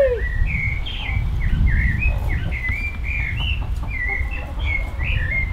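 Birds chirping in a continuous run of short, high notes that bend up and down, over a steady low rumble.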